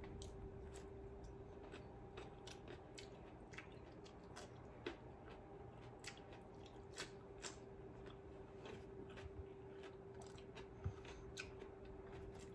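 Close-up crunching and chewing of raw cucumber slices: a series of sharp, irregular crisp crunches, with a faint steady hum underneath.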